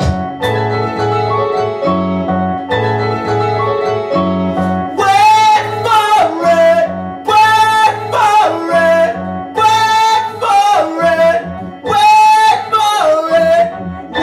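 Live-looped electronic music: a repeating low bass-and-chord synthesizer pattern, joined about five seconds in by a bright lead phrase with downward pitch bends that repeats roughly every two and a half seconds as a layered loop.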